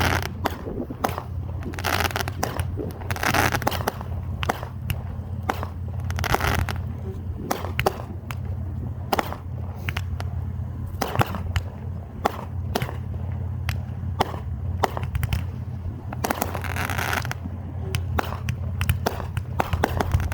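Fireworks going off in a steady run of sharp bangs and crackles, with a few short hissing rushes among them.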